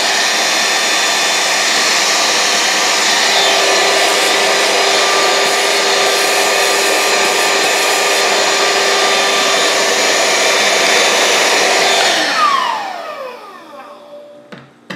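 Small handheld vacuum with a brush nozzle running steadily as it sucks coffee grounds off a disassembled espresso grinder. About twelve seconds in it is switched off and its motor winds down with a falling whine. A small click near the end.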